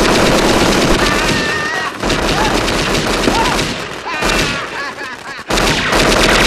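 A string of firecrackers going off in rapid, unbroken crackling, mixed with movie machine-gun fire. The crackle thins out about two seconds in and returns at full density shortly before the end.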